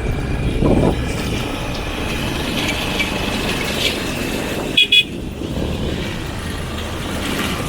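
Steady running noise of a road vehicle being ridden in, rumble with wind and road noise, and a brief horn toot about five seconds in.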